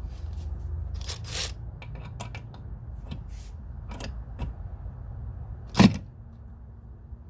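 Tools and hardware being handled: scattered sharp clicks and clacks, the loudest a single knock near six seconds in, over a low steady hum.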